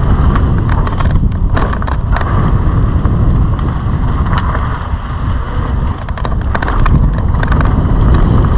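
Mountain bike riding fast over a dirt track: wind rumbling over the camera microphone, tyres on loose dirt and gravel, and scattered clicks and rattles from the bike over the bumps.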